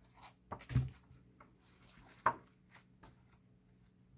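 A hardcover colouring book being opened and its pages leafed through: a few soft thumps and paper rustles, the sharpest about two seconds in.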